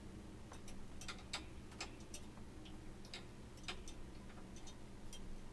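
Scattered small clicks and light taps of hands handling small parts, at an uneven pace, over a steady low hum.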